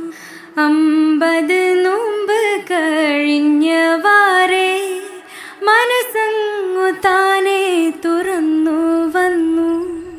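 Malayalam song music: a melody of sliding, ornamented notes that begins about half a second in and breaks off just before the end.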